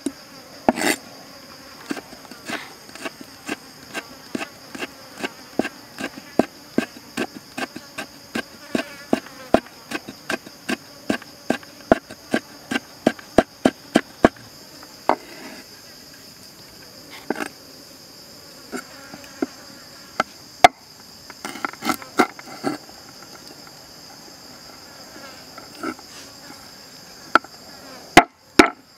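Cleaver slicing fresh red chili into thin strips on a wooden chopping board: a run of short, sharp knocks about two to three a second, thinning out to scattered knocks about halfway through. Insects drone steadily and high underneath.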